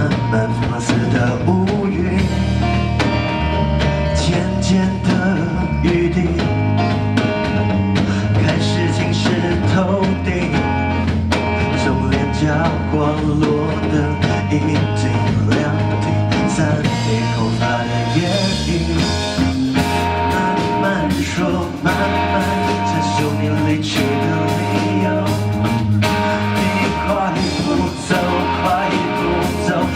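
Rock band playing a song, with a steady bass line, regular drum hits and guitar.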